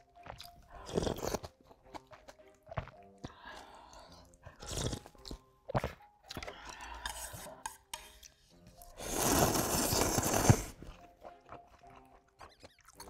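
Close-miked eating of ramyun noodles: chewing with short slurps about one and five seconds in, and one long, loud slurp of noodles lasting about a second and a half near nine seconds in.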